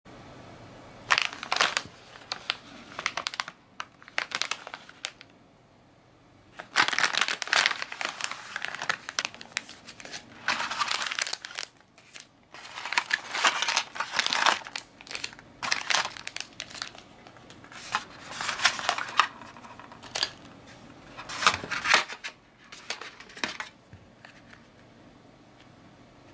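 Plastic candy-kit wrapper and powder sachets crinkling as they are handled and unpacked, in irregular bursts with short pauses.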